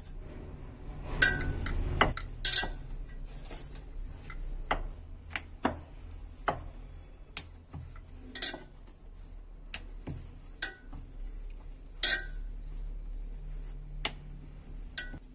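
A stuffed paratha being rolled out with a rolling pin on a marble rolling board: a low rolling rumble about a second in, and about ten irregular sharp clacks of the pin and board.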